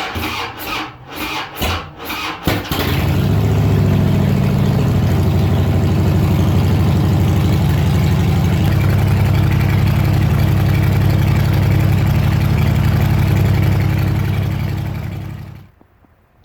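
An engine cranking in a few short bursts, catching about two and a half seconds in, then running loud and steady until it is shut off near the end.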